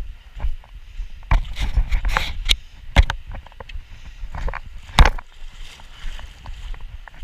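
Splashing and sloshing of legs wading through a river, irregular, with sharp loud hits about three seconds and five seconds in.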